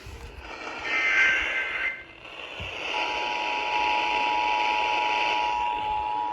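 Emergency Alert System signalling: a warbling burst of digital header data about a second in, then after a brief gap the steady two-tone EAS attention signal sounding over a hiss, announcing the next warning.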